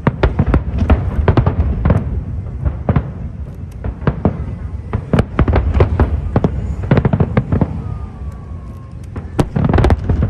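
Aerial fireworks display: a dense run of sharp bangs and crackles that thins out about two thirds of the way through, then a fresh cluster of bangs near the end.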